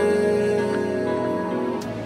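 Soft background music: held instrumental tones with a few light plucked notes, between sung lines of a Hindi song.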